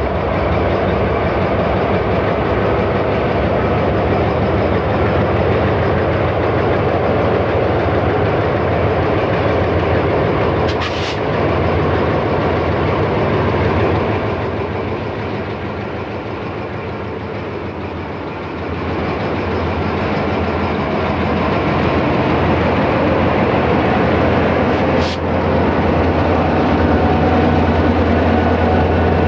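Diesel-electric freight locomotives of a loaded coal train running past, a steady low engine drone with rail and car noise. The drone eases off about halfway through and comes back stronger near the end. Two brief sharp sounds come about 11 and 25 seconds in.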